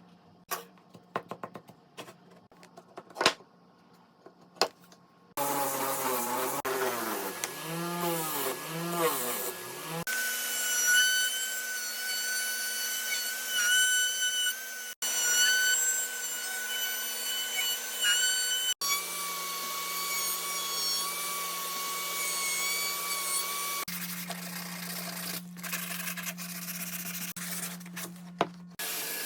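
A few light clicks and knocks of wood and tool handling, then an electric woodworking power tool running with a steady whine over a hiss. The tool's pitch sweeps up and down repeatedly at first, then holds steady in several abruptly cut segments.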